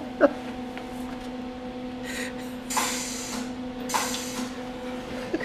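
Welder laying three short bursts of welds into a sheet-steel car inner fender panel, each a hissing burst under a second long, about two, three and four seconds in, over a steady low hum.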